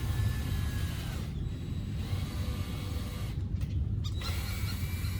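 Cordless drill pre-drilling holes in a plastic fender flare, running in short bursts: a steady motor whine for about a second at the start and again near the end, over a steady low rumble.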